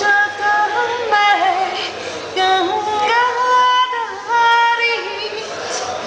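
A woman singing an Indian melody without words, holding notes and sliding between them with ornamented turns.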